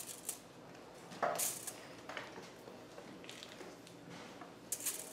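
Raw onion rings being laid by hand onto aluminium foil lining a metal baking tray: a handful of short, soft crinkles and taps of the foil, coming closer together near the end.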